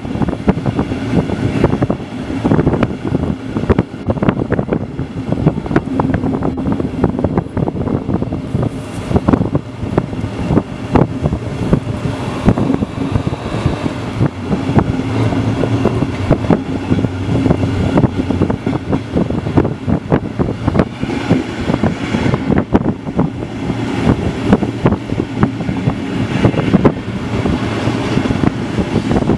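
Passenger train coach running over points and rail joints: wheels clicking and clattering in quick irregular strokes over a steady low hum and rushing air.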